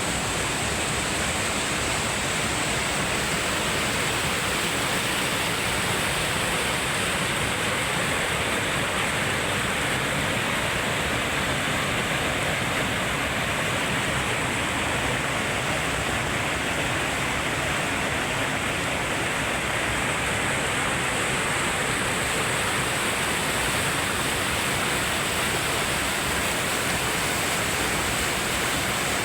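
Waterfall rushing steadily: an even, unbroken noise of falling water with no change in level, and a faint steady high-pitched tone above it.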